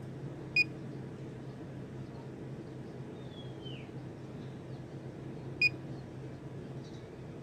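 Two short, high, clear beep-like notes about five seconds apart, the loudest sounds, over a steady low hum. A faint falling bird chirp comes between them.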